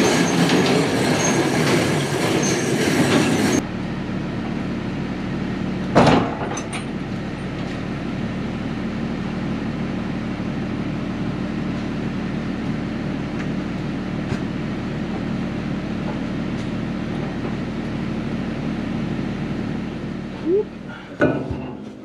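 Farm machinery running steadily with a low, even hum, after a loud hissing rush that cuts off abruptly a few seconds in. One sharp metallic clank sounds about six seconds in.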